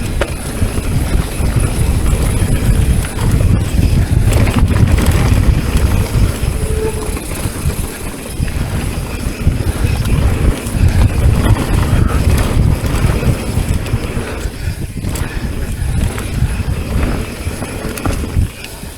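Mountain bike descending a dirt trail at speed: wind buffeting the rider-mounted microphone and tyres rumbling and rattling over the ground, with the bike knocking over bumps. A short squeal about a third of the way in is typical of the disc brake, which the rider suspects was overheated.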